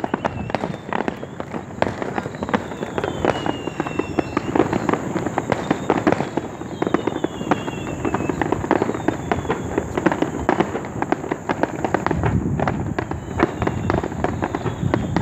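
Many fireworks going off at once: a dense, continuous run of rapid bangs and crackles, with repeated short whistles that fall in pitch.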